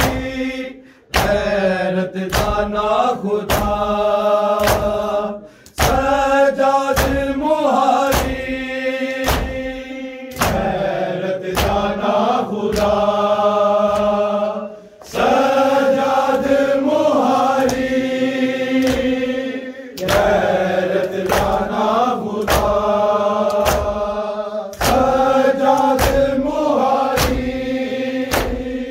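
Men chanting a noha, a Shia lament for Muharram, in sung lines of about five seconds with short breaks between them, over rhythmic chest-beating (matam) slaps about twice a second.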